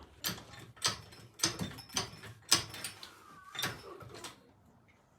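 A series of sharp knocks and clanks, about six spread unevenly over four seconds, from jacking up the front of a quad bike. They fade out near the end.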